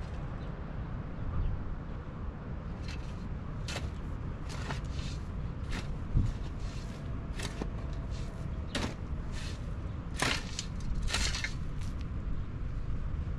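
A long-handled shovel scraping and digging into dry, stony soil, with irregular scrapes and knocks about once a second and one sharper knock about six seconds in, over a steady low background rumble.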